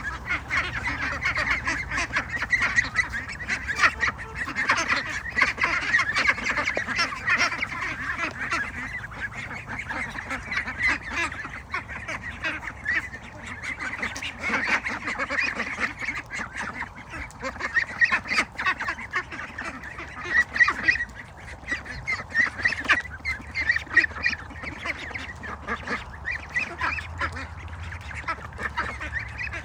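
A flock of domestic ducks quacking and calling, many birds at once in a dense, overlapping chorus.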